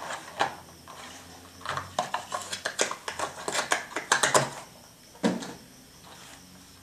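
Clear plastic blister packs holding RAM modules clicking and rattling as they are pulled from a cardboard box and set down on a table, a quick run of clacks in the middle, then one sharper clack.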